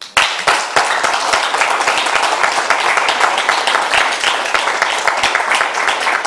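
Audience applauding a winner's announcement, breaking out suddenly and keeping up steadily.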